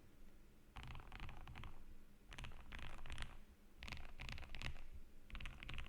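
Typing on a custom KBD67 Lite R3 mechanical keyboard with lubed Gateron Black Ink linear switches and Durock V2 stabilizers: four quick flurries of keystrokes, each about a second long, with short pauses between them.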